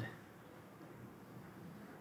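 Quiet room tone with a faint, steady low hum.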